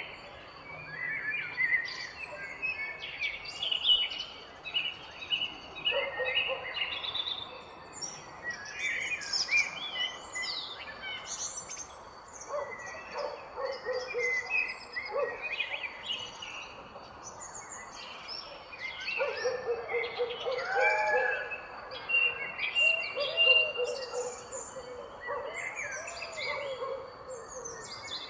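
Several birds chirping and singing at once, a dense mix of quick high chirps and trills. Lower, repeated calls from another bird join in about a third of the way through and again through the second half.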